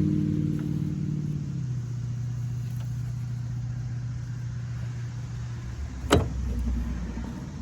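A steady low machine hum that slowly fades and stops about six seconds in, with a single sharp knock just after it.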